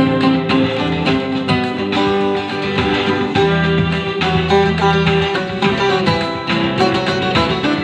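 Bowl-backed mandolin-family instrument picked with a plectrum, playing a melody of quick plucked notes.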